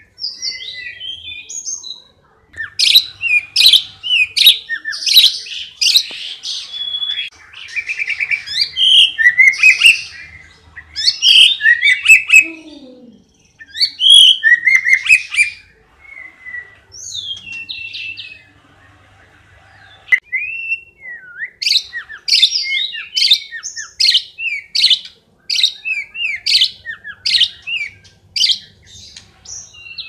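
White-rumped shama (murai batu) singing a loud, varied song of whistled phrases and glides with mimicked bird calls worked in. Near the end it delivers a fast run of sharp repeated notes, several a second.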